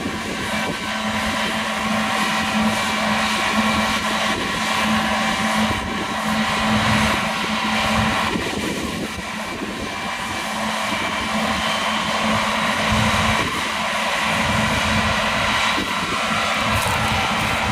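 John Deere combine harvester running steadily while harvesting, engine and machinery together: a steady drone with several high, steady whines over it.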